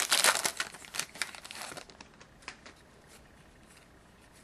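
Trading card pack wrapper being torn open and crinkled for about the first two seconds. After that it is much quieter, with a few faint light ticks as the cards are handled.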